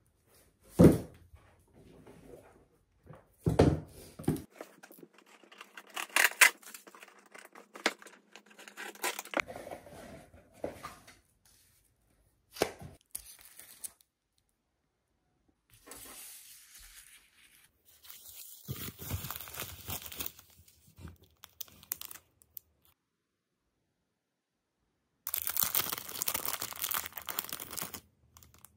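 Plastic packaging being handled at close range: a couple of thumps near the start, then rustling and crinkling of a bubble-lined plastic mailer and clear plastic sleeves. Bursts of tearing come in the middle, and the loudest and longest tearing comes near the end.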